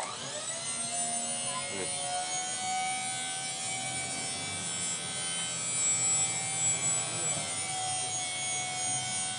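Electric motor of a tipper trailer's electro-hydraulic pump running steadily as the bed tips up, with a steady whine. It starts suddenly and rises in pitch briefly as it spins up.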